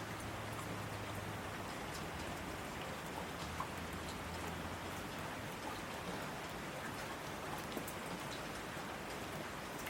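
Steady rain falling, with the patter of individual drops ticking now and then over an even hiss.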